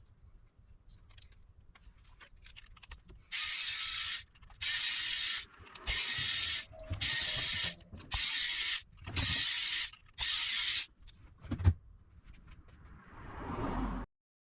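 Seven short hissing sprays, each under a second and about evenly spaced, then a longer hiss that swells near the end.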